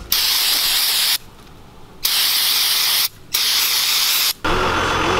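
Aerosol spray can fired through its straw nozzle in three hissing bursts of about a second each, with short gaps between. A steadier low background noise takes over near the end.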